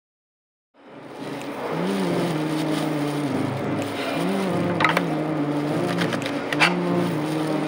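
Café counter sounds: a steady low hum that rises and falls in pitch in slow swells, with a few sharp clicks and rustles as a bunch of fresh greens is handled in plastic gloves.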